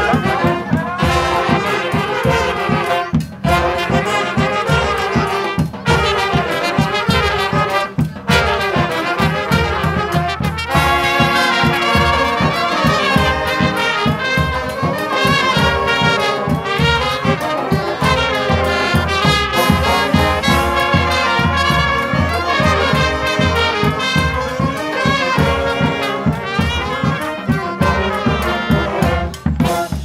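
Street brass band playing live: saxophones, clarinets, trumpets and trombones over sousaphone and bass drum, with a steady beat. The music breaks off briefly a few times in the first ten seconds.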